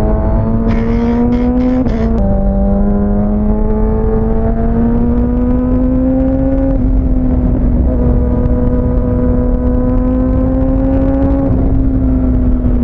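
Kawasaki ZX-6R inline-four engine pulling steadily, its pitch creeping slowly up, with a quick upshift about two seconds in; a few short clicks come just before the shift. Low wind rumble runs underneath.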